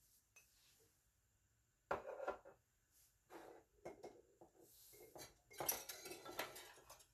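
Kitchenware clattering: a spatula and dishes knocking and clinking against a stainless steel saucepan and bowls. There are a few separate knocks from about two seconds in, then a busier run of clinks near the end.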